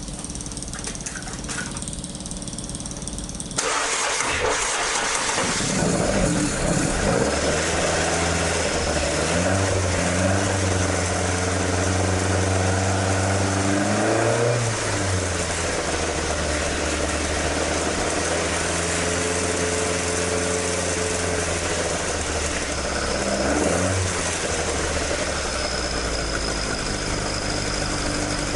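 Toyota AE86's 4A-G twin-cam four-cylinder starting about three and a half seconds in and running through its stock exhaust, the exhaust leak now repaired. The revs creep up for several seconds, drop back and settle to a steady idle, with a brief blip of revs near the end.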